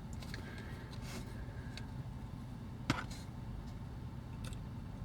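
A few faint clicks and taps of small parts and tools being handled, with one sharper click about three seconds in, over a low steady hum.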